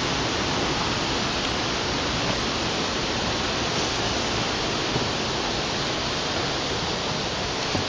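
Steady, even rush of rain-swollen water pouring over a low wall and down a waterfall.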